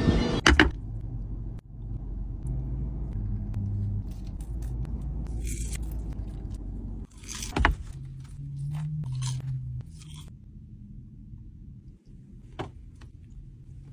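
Steady low rumble of a car cabin, with a few short crunching and scraping sounds of food being handled and bitten.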